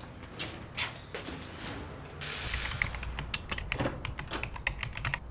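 Fast typing on a computer keyboard, a quick run of key clicks that starts about halfway in. Before it come a few scattered knocks and a brief hiss.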